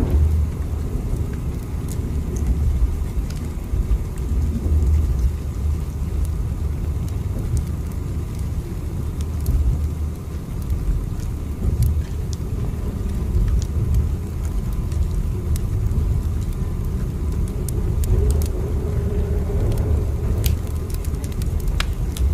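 Steady low rumble of a train running, heard as from inside, with scattered light clicks and rattles.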